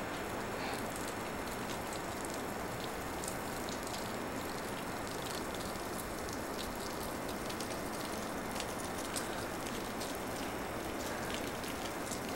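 A steady, even hiss with faint scattered clicks.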